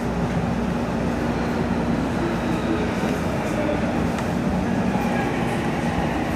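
Odakyu 3000-series electric train running steadily between stations, heard from inside the leading car: an even rumble of wheels on the rails and running gear.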